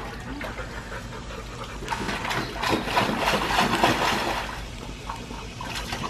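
Water splashing as children jump and stomp in a shallow plastic kiddie pool, with a garden hose running into it. The splashing grows louder about two seconds in and eases off after about four and a half seconds.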